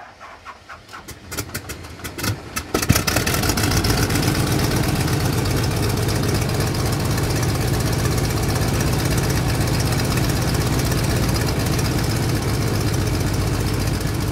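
Piston aircraft engine being started: separate firing pops that quicken over about three seconds until it catches, then running steadily at idle.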